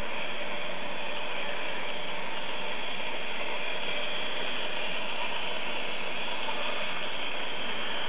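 H0-scale model trains running on a Märklin three-rail layout: a steady, dense clatter of wheels over the track and rail joints, with the whirr of the locomotive mechanisms.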